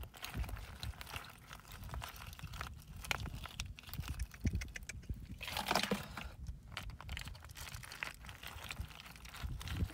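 Freshwater snail shells clicking and clattering against one another as handfuls are scooped up from wet mud, with wet squelching, in irregular bursts; a louder stretch of clatter a little past the middle.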